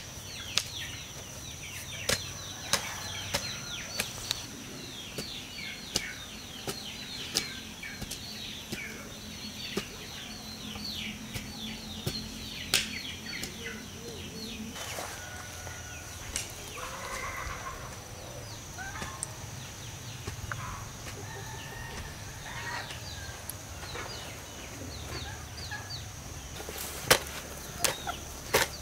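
Farmyard poultry: a long run of quick, high, falling peeps, with a few lower clucking calls about halfway through and scattered sharp knocks.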